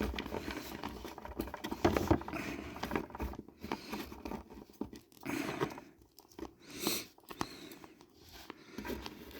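Scattered small clicks and rustles of a plastic action figure and its swappable parts being handled, with soft rustling about halfway through and again a little later.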